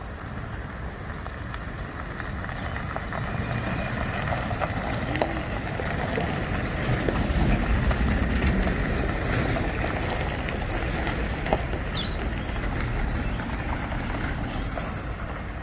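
A motor vehicle running: a steady low rumble that swells towards the middle and eases off again.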